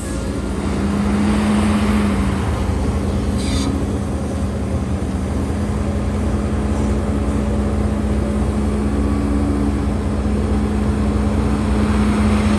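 Heavy diesel engine running steadily under load, with a short hiss about three and a half seconds in.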